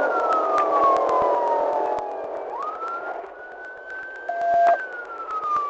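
Police car siren wailing: its pitch falls slowly, sweeps quickly back up about two and a half seconds in, climbs slowly and falls again, with sharp crackling clicks throughout.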